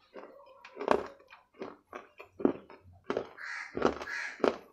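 Close-miked chewing and crunching of a wet bar of food, with loud bites and wet mouth clicks. Two longer, harsh sounds come just after three and a half seconds and again about four seconds in.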